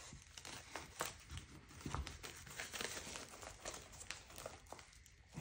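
Faint crinkling and rustling of a plastic bubble mailer being handled, with a few soft clicks scattered through.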